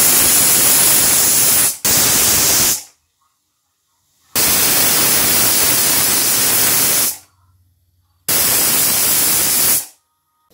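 Pressure cooker whistling on a high flame: steam hissing out from under the weight valve in four long bursts with silent gaps between them, the cooker letting off built-up pressure.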